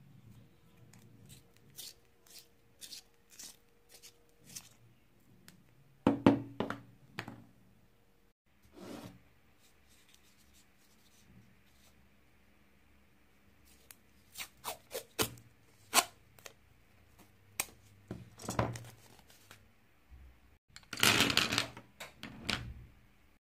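Drawing supplies handled on a wooden tabletop: scattered clicks and light knocks, with bursts of scratchy rasping about six seconds in and again, longer and louder, near the end.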